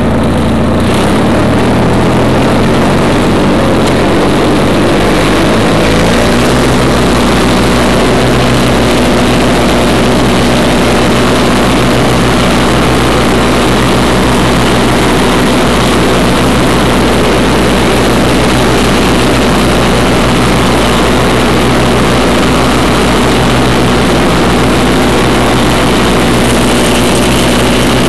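1991 Craftsman GT6000 garden tractor's 20-horsepower Onan engine running while mowing grass. Its speed shifts over the first few seconds, then holds steady.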